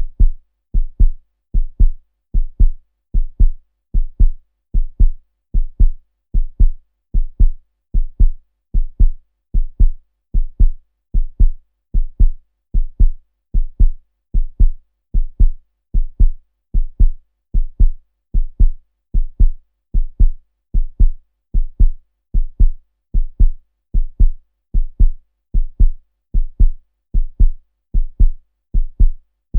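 A heartbeat: steady, even paired low thumps (lub-dub), a little more than one beat a second, with no change in pace or loudness.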